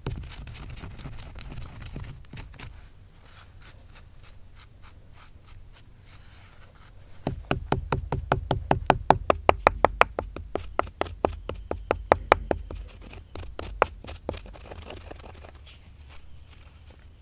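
Hand-held stone pestle pounding acorns to meal in a mortar hole in granite bedrock: a quick, even run of knocks, about five a second, faint at first and loudest in the middle, then thinning to a few scattered strikes and stopping near the end.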